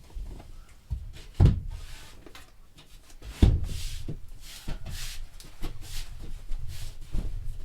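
Drywall work: two heavy thumps about a second and a half and three and a half seconds in, followed by a run of scraping and light knocks as drywall pieces are handled and fitted.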